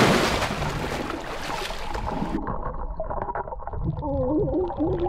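Water splashing and rushing bubbles as a boy dives down into a swimming pool. About two and a half seconds in, the sound turns muffled and underwater, with low wavering gurgles.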